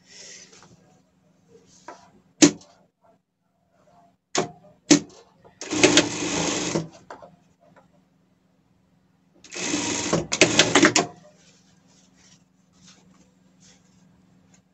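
Industrial lockstitch sewing machine stitching a seam in two short runs, each a bit over a second, with a faint steady motor hum between them. A few sharp clicks come before the first run.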